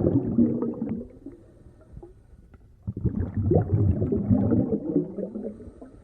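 Coolant gurgling and bubbling through a custom PC water-cooling loop in two bouts: one dying away in the first second and a half, a second starting about three seconds in. This is the sound of air still working its way through the loop.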